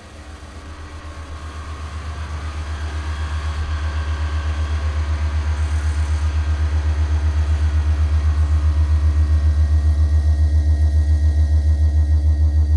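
Acoustic sculpture built from found objects giving off a low, throbbing, engine-like drone with a rapid pulse. It swells up over the first several seconds and then holds steady.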